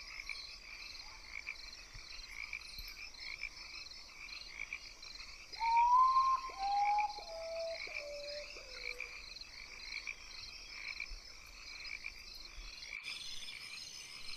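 Night chorus of frogs calling over and over in a steady rhythm. About six seconds in, a louder series of five whistled notes steps down in pitch, each note lower than the one before.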